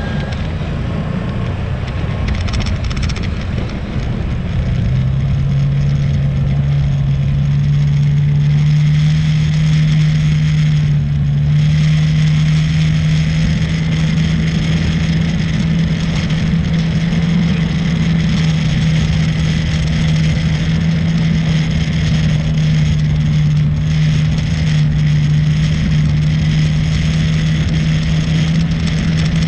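ATV engine running steadily while riding over sand, with wind rushing over the microphone. The engine note comes up clearer and louder about five seconds in and then holds steady.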